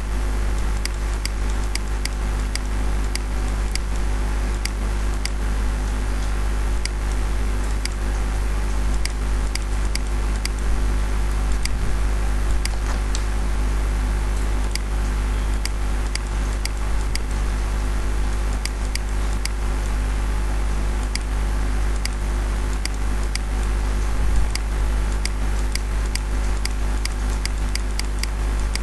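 Steady low electrical hum with frequent light clicks at irregular spacing, several a second.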